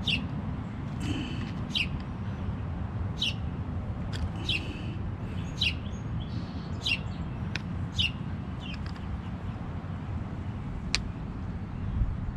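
Small birds chirping, short high chirps roughly once a second over a steady low rumble. A single sharp click near the end.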